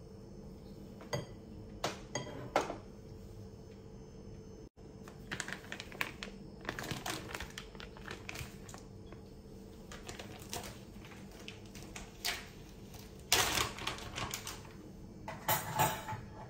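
Kitchen handling noises: a few light clicks, then a thin plastic bag crinkling in short bursts, and a ceramic plate set down on the countertop with clacks near the end.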